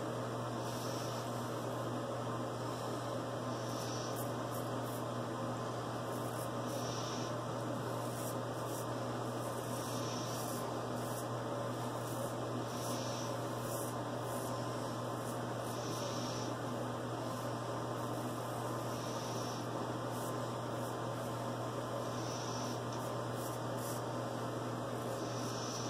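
Steady low hum under faint scratchy strokes of a vintage Frederick Reynolds safety razor cutting lathered stubble against the grain, one stroke about every three seconds.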